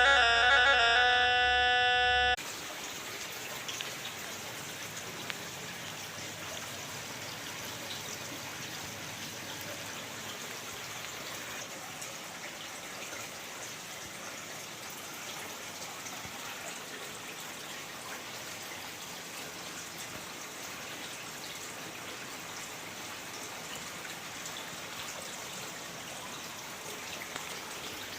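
Steady trickling and splashing of water in an ornamental fish pond, with a few faint ticks. Music with sustained tones plays at the start and cuts off abruptly about two seconds in.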